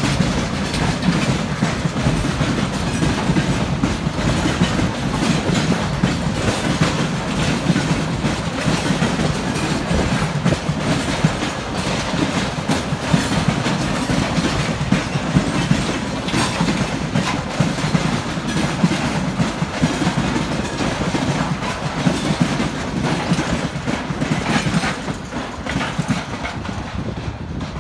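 Freight train of railway tank cars rolling past, a steady rumble with repeated clacks of the wheels over the rail joints.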